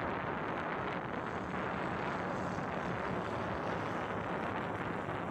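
Steady rushing wind on the microphone mixed with the drone of jet ski engines out on the water, with no single sharp event.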